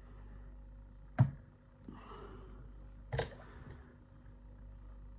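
Two sharp clicks about two seconds apart, with a soft scraping between them, as a handmade slider pick and tensioner are worked into a Bramah cylinder lock held in a vice.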